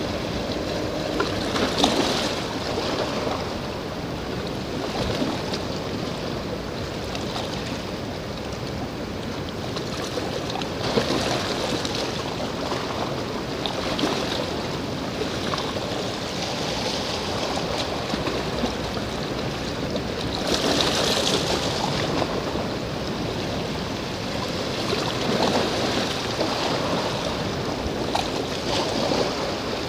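Sea surf washing against the shore: a steady hiss of water that swells irregularly, loudest about two-thirds of the way through.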